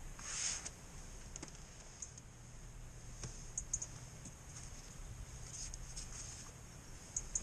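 Scattered light clicks and a brief rustle from feeder fishing tackle being handled as the rod is picked up, over a low steady rumble.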